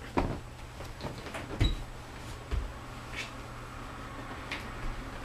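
Household handling noises, most likely laundry being folded: a handful of scattered light knocks and clicks, the two strongest near the start and about a second and a half in, over a steady low hum.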